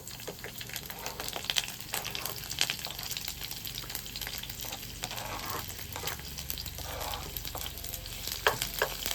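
Strips of bell pepper and zucchini sizzling and crackling in hot olive oil in a frying pan as they are stirred, a steady hiss with many small pops.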